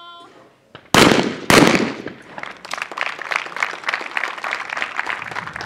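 A short call, then two shotgun shots from an over-and-under skeet shotgun about half a second apart as a pair of skeet targets is fired on, followed by applause from spectators.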